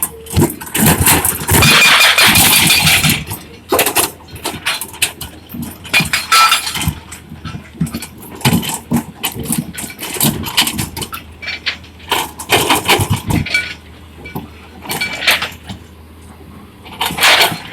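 Excavator at work: engine running under irregular clanks and knocks, with a loud stretch of scraping and clatter about a second in and again near the end.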